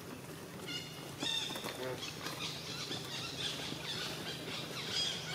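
Monkey giving repeated high-pitched squeals, starting just under a second in and coming again and again.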